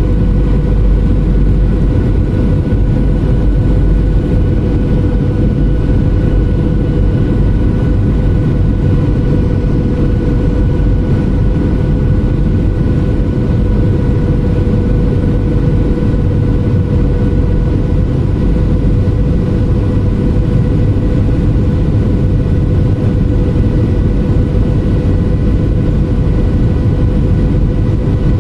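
Jet airliner cabin noise from a window seat over the wing: a loud, steady rumble of engines and airflow with a constant hum and a few fainter higher whines above it.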